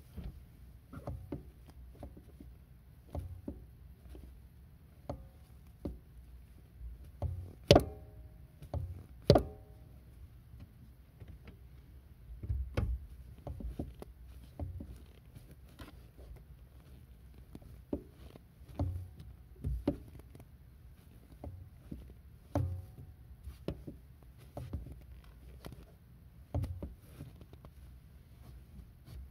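A car pedal pumped repeatedly by a foot in a Vans Old Skool sneaker: irregular knocks and clicks of the pedal and shoe, about one every second or two, with two louder knocks near the middle.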